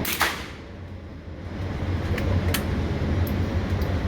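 A single gunshot about a quarter of a second in, ringing briefly off the range walls, then two fainter sharp cracks about two and two and a half seconds in, over a steady low hum.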